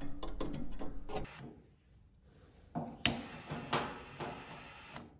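Background string music ends about a second in. From about three seconds in come a few sharp clicks over a hiss as a handheld lighter is sparked at the old gas heater's pilot, which gets no gas and does not light.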